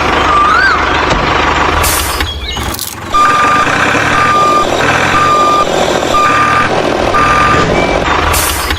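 Truck reversing alarm beeping about once a second, starting about three seconds in, over a steady engine rumble. A couple of sharp clicks or knocks come just before the beeping starts.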